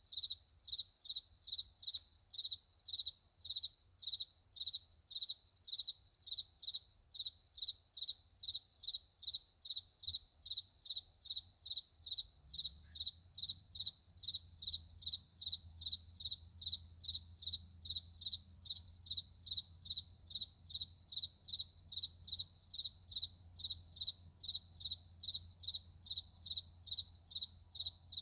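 A cricket chirping steadily and high-pitched, about two to three chirps a second, played as a masking sound. Beneath it is a faint low rumble that gets a little stronger about halfway through.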